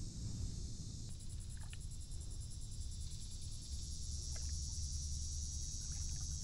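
Steady high-pitched insect buzz, with a low rumble underneath and a few faint clicks.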